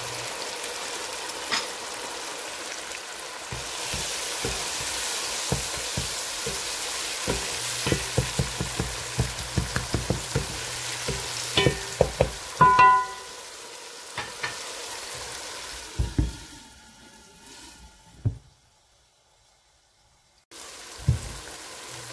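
Tomato-and-onion masala with spice powder sizzling as it fries in a pot, while a spatula stirs and scrapes it with a run of quick knocks against the pot. A short ringing clink sounds a little past halfway, and the sound cuts out for about two seconds near the end.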